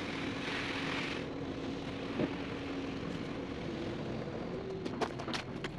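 A truck engine runs steadily with a held hum that steps up in pitch a little past halfway. A few sharp clicks or taps come near the end.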